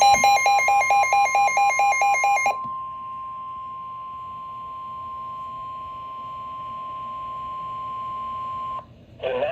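NOAA Weather Radio warning alarm tone: a single steady high tone that lasts about nine seconds and cuts off suddenly, announcing a severe weather warning. For its first two to three seconds a loud alert beeping, about four beeps a second, sounds over it.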